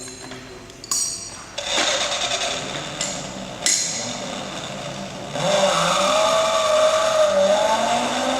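Electronic car sound effects played from a children's car bed's sound module: engine and racing-car noises with a few sharp clicks. About five seconds in it grows louder, with a wavering steady tone.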